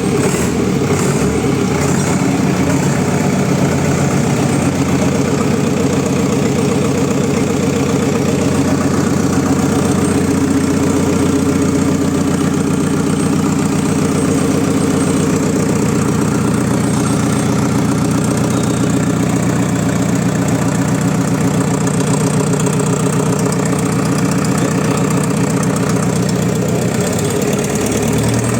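Freshly overhauled JCB 444 four-cylinder diesel engine idling steadily soon after starting.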